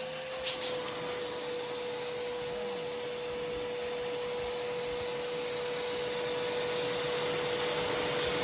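A vacuum running steadily with a constant motor whine over a rushing airflow, drawing up concrete dust from a freshly drilled hole.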